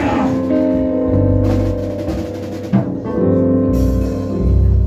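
Background music with no speech: held chords that change a few times, over deep bass notes.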